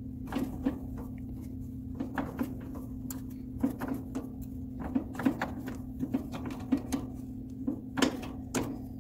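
Irregular metal clicks and knocks as a gloved hand works the filter drier on a heat pump's copper refrigerant line to remove it, over a steady low hum.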